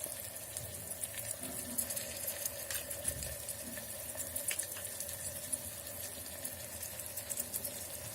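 Onion, capsicum and tomato mixture frying in oil in a pan, a steady sizzle with small crackles.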